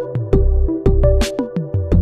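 Background music with a steady beat: deep bass pulses, short plucked notes and a sharp hit about every second and a half.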